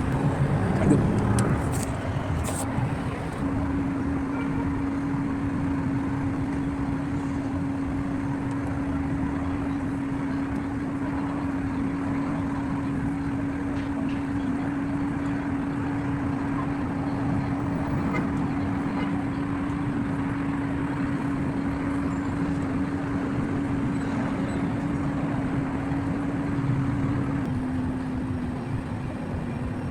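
Porsche Cayenne six-cylinder engine running steadily, with a steady hum that drops slightly in pitch near the end. A few clicks in the first few seconds.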